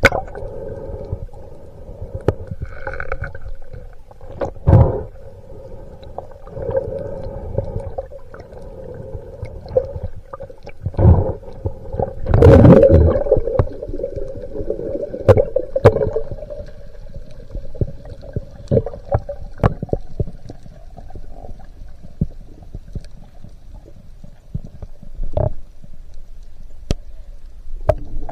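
Underwater sound picked up by a spearfisher's camera below the surface: a steady hum with scattered sharp clicks and knocks, and a louder muffled burst of noise about halfway through.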